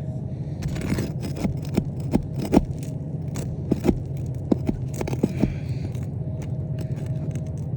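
Scraping and sharp clicks of a tool being worked against asphalt shingles and a roofing nail to pry the nail loose, over a steady low hum.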